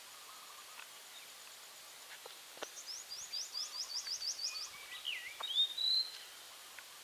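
Birds singing over a steady background hiss: a fast run of about nine high, quickly repeated notes a few seconds in, followed by a lower slurred whistle.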